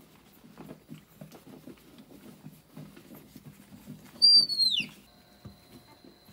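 Soft rustling and pattering of small animals shifting about, broken about four seconds in by one loud, high-pitched animal squeal under a second long whose pitch falls.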